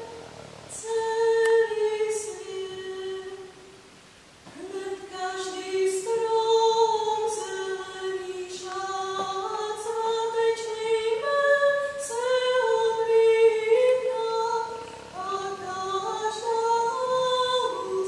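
A young woman singing solo and unaccompanied, holding long notes that step up and down in pitch, with a brief pause for breath about four seconds in.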